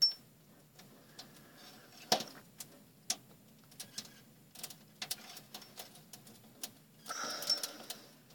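Fishing reel clicking irregularly, a few sharp ticks a second, as a hooked northern pike pulls line against a drag that is set too loose. A brief rustle comes near the end.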